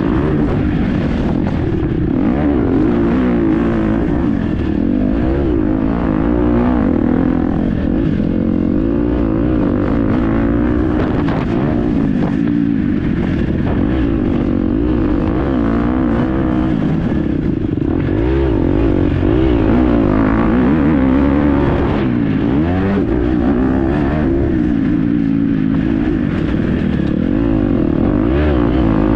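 KTM 250 SX-F four-stroke single-cylinder motocross engine under hard riding, its pitch rising and falling continuously with throttle and gear changes.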